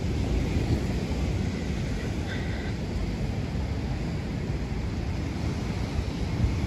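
Wind buffeting the microphone: a steady, fluttering low rumble, with a faint brief high-pitched sound a little over two seconds in.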